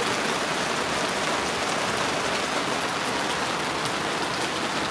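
Steady rain falling, a dense even hiss with individual drops ticking close by.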